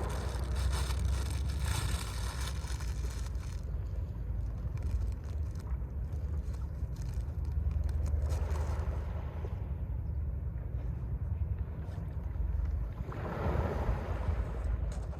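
Mediterranean sea waves washing onto the shore, with surges of surf about eight and thirteen seconds in, over a steady low rumble of wind on the microphone.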